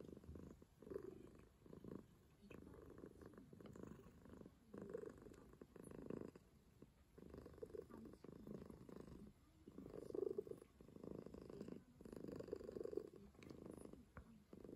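Calico cat purring steadily while being stroked on the head, a low rumble that swells in pulses about a second apart.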